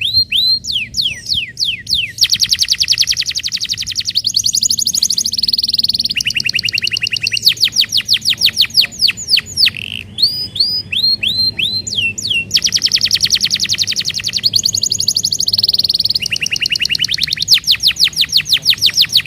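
Domestic canary singing fast, tight trills: runs of rapidly repeated notes and falling sweeps, switching to a new trill every second or two.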